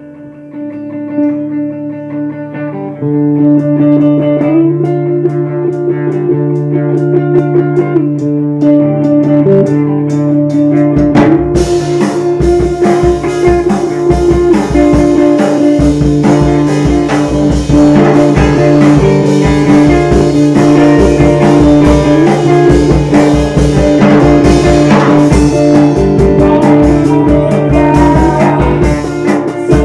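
A band playing a rock instrumental: guitar riffing over a steady bass line, joined by a full drum kit about eleven seconds in.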